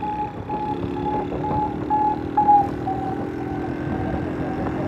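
Small motorcycle engine running under way, with a short electronic beep repeating about twice a second. The beep dips slightly in pitch about halfway through.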